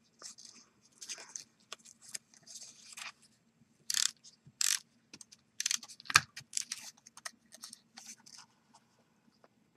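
Paper cut-outs and card stock being handled on a craft mat: irregular light rustling and small clicks and taps, with one sharper click about six seconds in.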